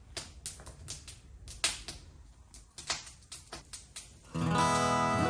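A wood fire crackling in a fireplace, with irregular sharp pops and clicks over a low rumble. Acoustic guitar music starts a little over four seconds in.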